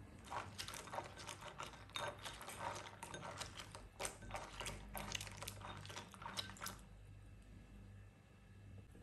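Hands swishing and rubbing dried quince slices in a ceramic bowl of water: a run of small splashes and light clicks that stops about seven seconds in.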